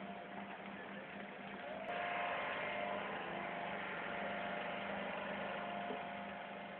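Engines of heavy-haul tractor trucks running steadily as they move a multi-axle trailer, with a steady hum through it. The sound steps up louder about two seconds in.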